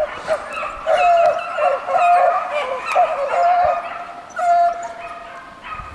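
A pack of beagles giving tongue as they run a hare's scent line. Several hounds' voices overlap, mixing drawn-out bays with shorter barks.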